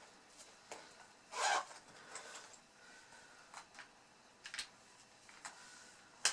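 Quiet handling noises: a few light clicks and taps, with one brief rubbing scrape about a second and a half in.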